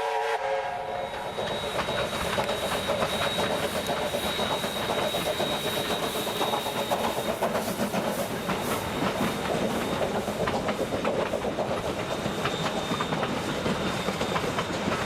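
Steam train running along the line, its wheels clattering over the rail joints, with the end of a steam whistle blast in the first second.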